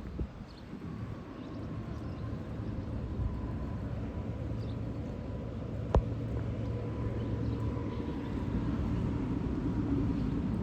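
Steady low rumble of distant engines with a faint high whine, slowly growing louder, and a single sharp click about six seconds in.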